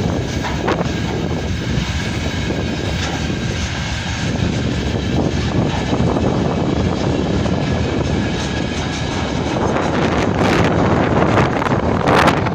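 Freight train rolling past as a steady heavy rumble, with strong wind buffeting the microphone and gusting harder in the last few seconds.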